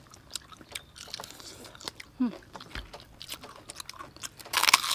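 People eating prawn crackers and crispy baked chicken wings: scattered crunching and chewing, with a loud, dense crunch near the end as a prawn cracker is bitten.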